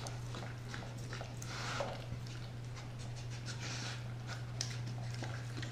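Doberman eating a wet raw-meat meal from a bowl: irregular wet chewing and lapping noises with small clicks, over a steady low hum.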